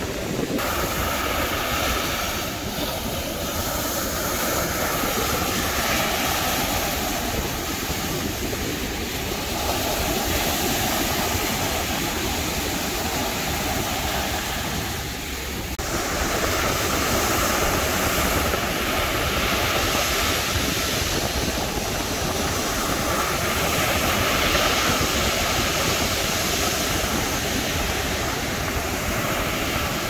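Ocean surf breaking and washing up a sandy beach: a continuous rush of water that swells and eases with the waves, with a brief dip about halfway through.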